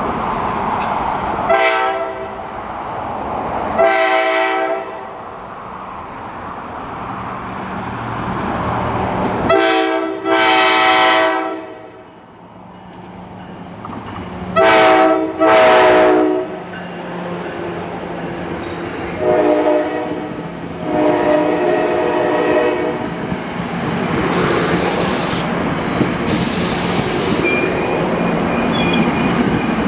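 NJ Transit ALP-45DP locomotive's Nathan K5LA five-chime air horn blowing a series of extremely loud long and short blasts for the road crossings, over the rumble of the approaching train. Near the end the train rolls past with two high squeals.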